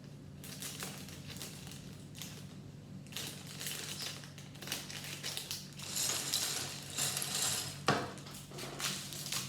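Plastic Lego parts bag crinkling as it is torn open and handled, with small plastic bricks clicking and clattering. There is one sharp click about eight seconds in.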